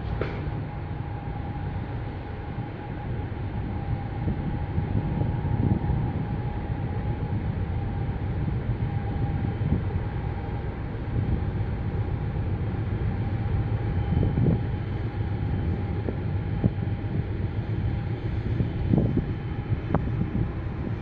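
Steady low rumble of the 5,400 TEU container ship Maersk Danube under way as it passes, with a faint steady hum above it and a few brief louder swells.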